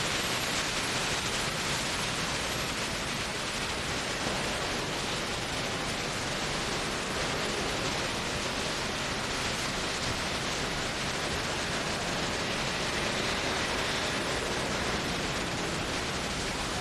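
Heavy rain falling steadily, an even hiss with no breaks.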